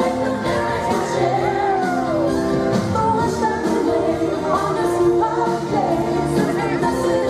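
Christmas pop song with sung vocals over a steady full backing.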